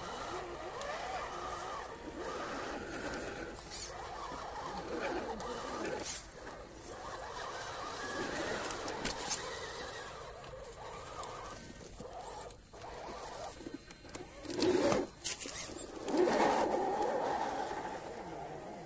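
Electric motors and gear trains of RC scale crawlers whining, the pitch wavering up and down with the throttle, with scattered small clicks and a couple of louder surges about three-quarters of the way through.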